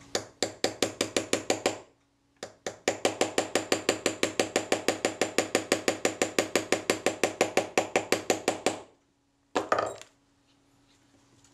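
Rapid, even clicking, about seven clicks a second, in a short run and then a longer one after a brief pause, as a small part is driven home into a Rolleiflex Automat camera body.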